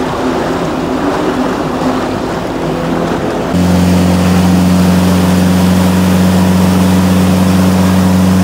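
Motorboat under way at speed: its engine drones over the rush of water and wake. About three and a half seconds in, the sound switches abruptly to a louder, steady low engine drone.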